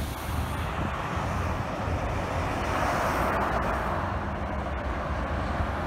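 Freeway traffic noise: the steady hiss of cars on a multi-lane road, swelling around the middle as a vehicle passes, over a low rumble.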